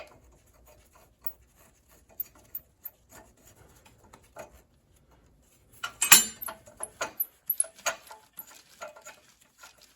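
Scattered clicks and light rattles of hand tools being handled, with a louder burst of clatter about six seconds in.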